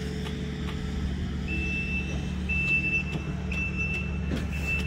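Heavy paving-equipment engine running steadily, with a backup alarm starting about a second and a half in: long, high single-tone beeps roughly once a second.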